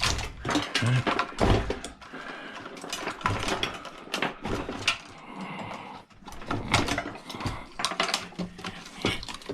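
Hand tools and metal parts clicking and clanking in an irregular string of sharp knocks as wires are snipped out of an old 12 V battery charger, the snips of the wire cutters among them.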